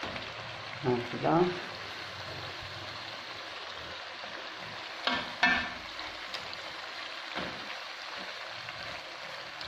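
Potato chunks frying in oil with spices and tomato in a pot, a steady sizzle throughout. A few knocks come around five seconds in and again near seven and a half seconds, as fennel wedges and a wooden spoon are moved against the pot.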